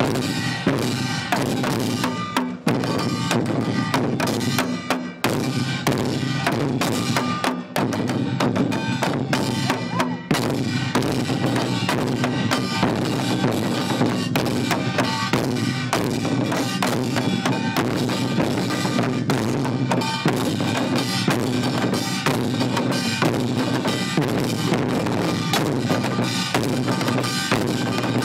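An ensemble of Korean barrel drums (buk) on stands, beaten in a fast rhythm, with a small hand-held brass gong ringing over them. The drumming breaks off briefly a few times in the first ten seconds, then runs on without a break.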